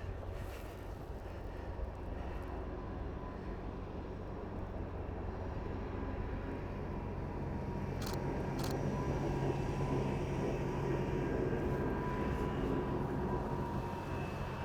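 A steady engine drone with a low hum that grows louder past the middle and eases off near the end, with two short clicks about eight seconds in.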